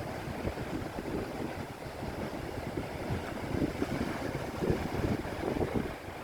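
Sea waves washing, with wind buffeting the microphone in uneven gusts.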